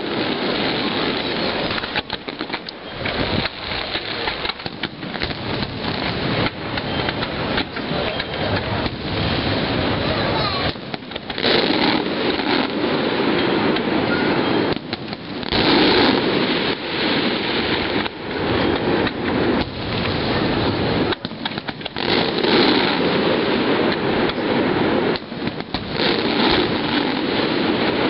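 Fireworks display: a dense, near-unbroken barrage of bangs and crackling from aerial shells bursting, with several louder surges.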